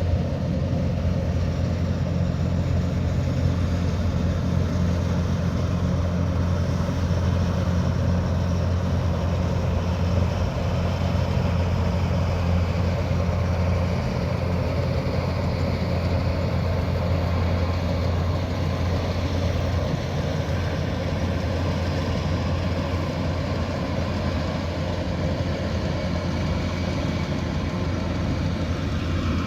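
Kubota DC108X combine harvester's diesel engine running steadily, a low even drone.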